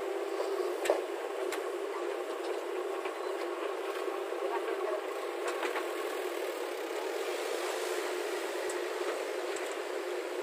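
Diesel engine of heavy earth-moving machinery running steadily, with a few short sharp knocks, the loudest about a second in.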